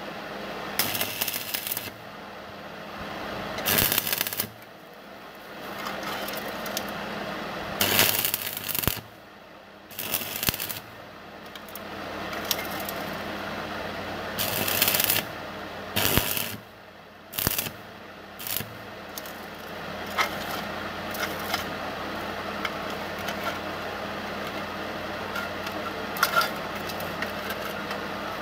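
Metal rattling and clanking in short, irregular bursts from the steel roller chain and sprocket drive of a homemade drill stand being worked by hand. The bursts are frequent in the first half and give way to faint ticks later.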